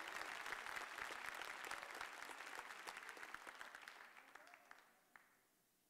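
Church congregation applauding, the clapping thinning out and dying away about five seconds in.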